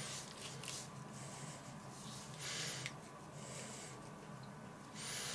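Dry spice rub shaken from a shaker jar onto raw duck breast: faint, soft rattling hisses in short irregular bursts, the strongest about halfway through and near the end.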